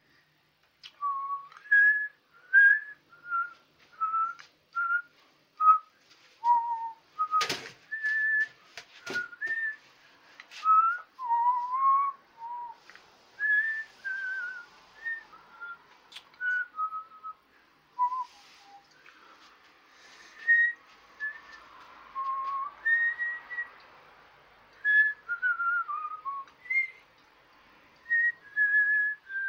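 A person whistling a slow, wandering tune in short separate notes. Two sharp knocks sound about a quarter of the way in.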